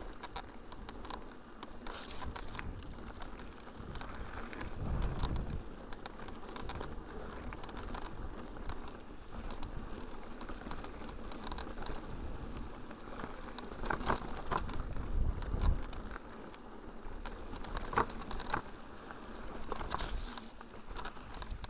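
Mountain bike riding down a rough dirt singletrack: tyres rolling over dirt and stones, with frequent clicks and rattles from the bike. Low thumps about five seconds in and again near the middle.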